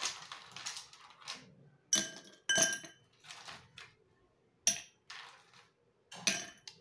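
Ice cubes dropped into glass tumblers: a handful of separate sharp clinks against the glass, some ringing briefly.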